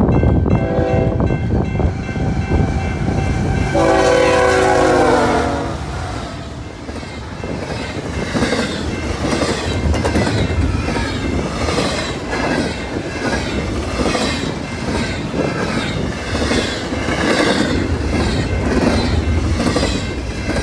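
A freight locomotive horn sounds briefly about a second in, then blows a longer chord from about four seconds in, its pitch sagging slightly as the train passes. A BNSF freight train then rolls by with a steady rumble and a regular rhythm of wheels clacking over the rail joints.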